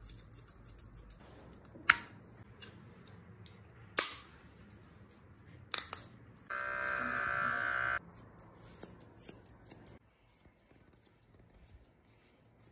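Grooming scissors snipping through dog fur in small, quick clicks, with a few sharper clicks. About six and a half seconds in, a cordless pet hair clipper buzzes steadily for about a second and a half and then cuts off, and the snipping resumes, growing fainter near the end.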